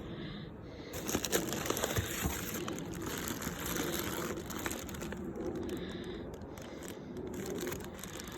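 Packaging being handled and unpacked from a box: a steady crinkling and rustling with scattered sharp clicks and crackles.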